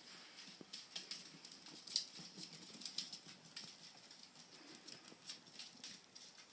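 Puppies' claws clicking and pattering on a hard floor as they scamper and play: a quick, irregular run of light ticks, with one louder tick about two seconds in.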